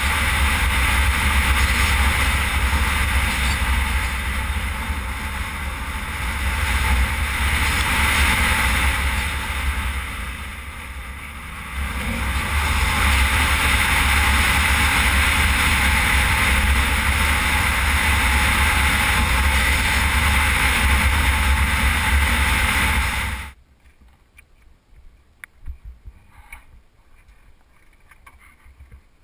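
Wind rushing hard over a helmet camera's microphone on a Suzuki V-Strom 650 motorcycle travelling at speed on a gravel road, with the bike's engine and tyres rumbling underneath. It eases briefly partway through, and about three-quarters of the way in it cuts off abruptly to faint, scattered sounds.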